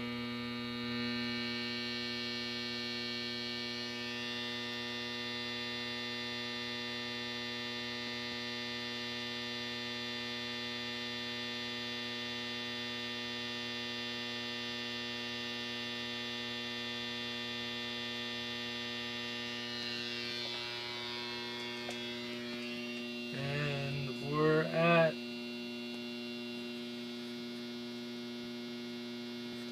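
Home-built high-voltage circuit with transformer and wound coils, switched on and humming steadily with a buzzy stack of overtones as it drives a water tube cell at around 1,700 volts peak to peak. About three-quarters through, two short, louder wavering tones sound.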